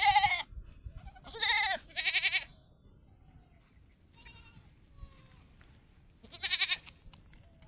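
Goat bleating: four loud, quavering bleats, one at the start, two close together about one and a half to two seconds in, and one more near the end, with fainter calls between.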